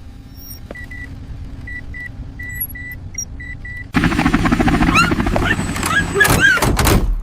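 Cartoon sound effects: a low steady rumble under a row of short, high electronic beeps. About four seconds in, a loud rushing noise with whistling pitch slides comes in.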